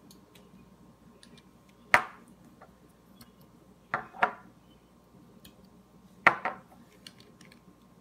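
Sharp clicks and knocks as a stuck cap on a small essential-oil bottle is worked at to get it open: one click about two seconds in, a quick pair about four seconds in, and another pair a little after six seconds.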